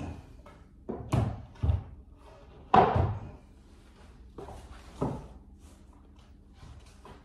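A series of wooden knocks and thumps, the loudest about three seconds in, from the wooden rails of a pool table being handled as the table is taken apart for re-felting.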